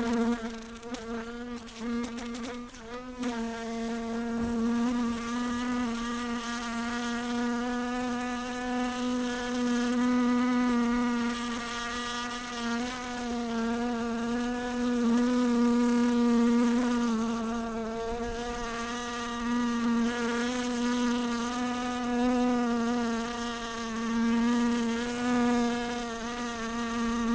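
House fly buzzing in flight, a steady wing-beat buzz that wavers in pitch and loudness as it moves about.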